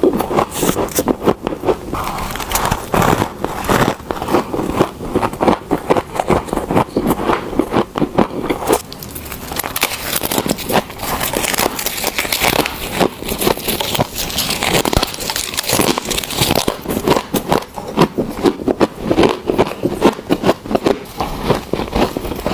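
Close-up crunching of freezer frost being bitten and chewed, a fast run of crackling crunches. About nine seconds in the crunches turn brighter and crisper as the biting moves on to an ice bowl packed with fresh frost.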